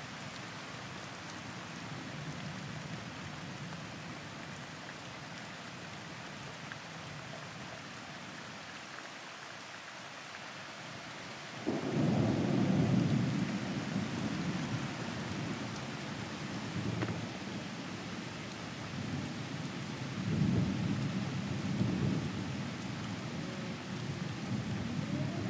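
Steady rain falling through trees during a thunderstorm. About twelve seconds in, a sudden loud rumble of thunder breaks out and rolls for several seconds, followed by more rumbles later on.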